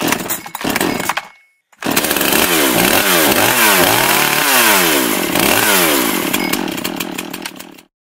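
Chainsaw engine running at high speed while carving wood, its pitch repeatedly sagging and climbing back. There is a short burst first, then after a brief break a longer run of about six seconds that cuts off abruptly.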